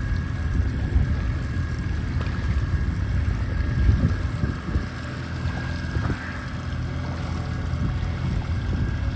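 Wind buffeting the microphone: an uneven low rumble that rises and falls in gusts, with a faint steady high whine above it and a few light knocks.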